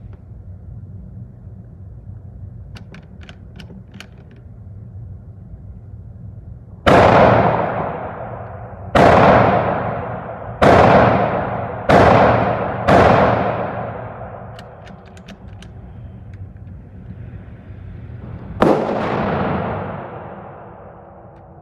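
Six shots from a 6.5 mm Carcano bolt-action rifle, each loud crack ringing out in a long echo. Five come in fairly quick succession, then one more about six seconds later. A few light metallic clicks come a few seconds before the first shot.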